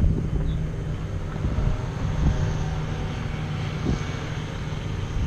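An engine droning steadily at a constant pitch.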